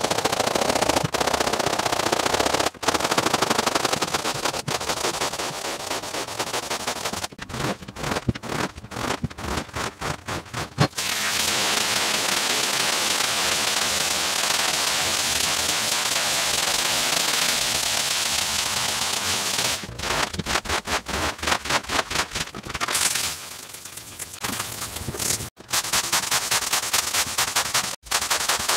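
Long-handled scrubbing brush worked over a wet, foamed shag rug in rapid crackly strokes. About eleven seconds in, a hose's stream of water gushes steadily onto the rug for several seconds. Then quick scraping strokes start again as a long-handled tool is pushed through the wet pile.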